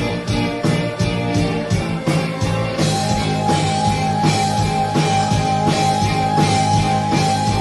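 Rock band playing an instrumental passage with electric guitar and drums on a steady beat. A sustained high guitar note comes in about three seconds in and holds.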